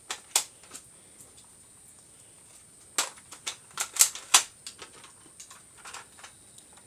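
Toy Nerf pistols clicking and snapping: one sharp click near the start, then a quick run of louder clicks between about three and four and a half seconds in.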